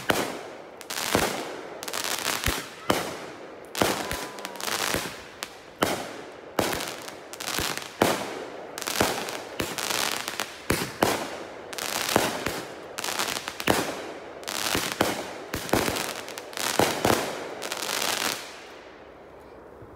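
Aerial fireworks going off in a rapid barrage, bang after bang with crackling in between, for about eighteen seconds before stopping shortly before the end.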